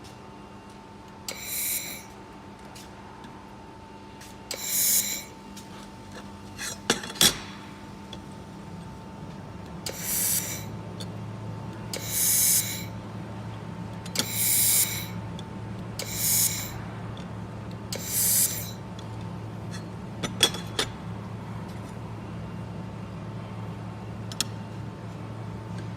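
Handheld fiber laser welder firing on stainless steel in short bursts: seven hissing bursts of about half a second each, with a couple of sharp clicks between them. A steady machine hum starts about ten seconds in.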